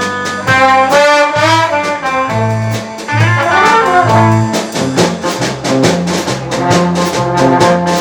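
Live band music: a lead melody line that bends in pitch around the middle, over a stepping bass line and steady drums.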